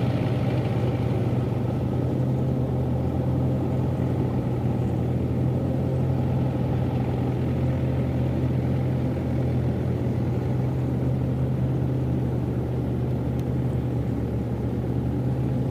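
Yanmar 4T100 engine of a home-built rice combine harvester running steadily, a constant low engine drone with no change in speed.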